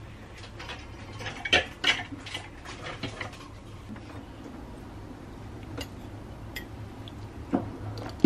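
Light clicks and taps of small objects handled on a table: reed diffuser sticks knocking against the glass bottle, with a cluster of clicks between about one and a half and three seconds in, then a couple of sharper knocks of utensils on dishes near the end, over a low steady hum.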